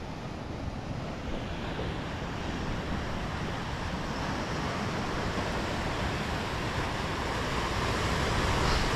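Wind on the microphone over the steady wash of sea surf against rocks, a low rumble under a broad hiss that slowly builds.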